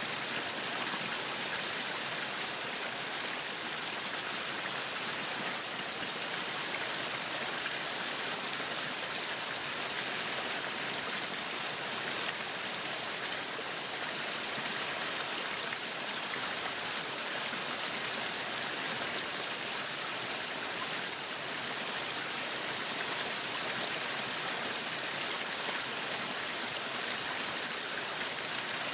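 Meat sizzling on a yakiniku grill: a steady hiss that holds at the same level throughout.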